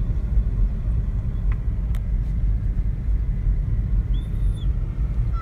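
Car rolling along in neutral at about 55 km/h: a steady low rumble of tyres and road heard inside the cabin, with the engine idling.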